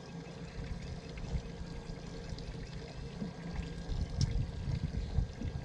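Water lapping and sloshing against the boat hulls, an irregular low splashing, with a small click about four seconds in.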